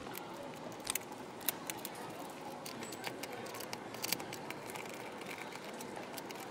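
Hands handling and sorting paper backing cards with metal pin backs into a plastic crate. Light rustling runs under many small, irregular clicks and ticks.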